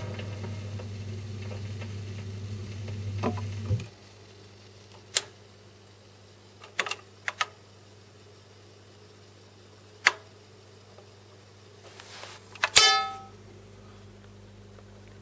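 Record changer on a 1963 Kriesler stereogram after the record has ended: a steady low hum through the speaker that stops about four seconds in with a couple of clicks as the tonearm lifts and returns to its rest. Scattered sharp mechanical clicks follow, with a louder clicking rattle near the end.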